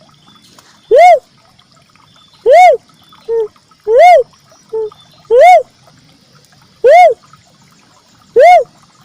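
Red cuckoo-dove (uncal merah) calling as a bird-lure recording: one short note that rises and falls in pitch, repeated six times about every one and a half seconds, with two softer, shorter notes slipped in between.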